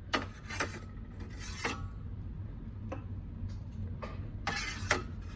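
Handling noises at an espresso machine: a few short rubbing, scraping sounds and a brief click over a steady low hum.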